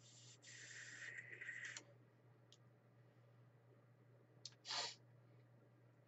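A drag on a vape mod with a 0.2-ohm coil firing at 95 watts: about two seconds of soft hiss as air is pulled through the atomizer, ending in a small click. A short breath follows a few seconds later.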